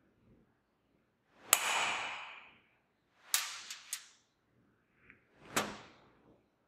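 Ball peen hammer lightly striking steel number punches on a steel part in a bench vise: a sharp metallic strike about a second and a half in that rings briefly, a quick run of three clicks a couple of seconds later, and one more strike near the end.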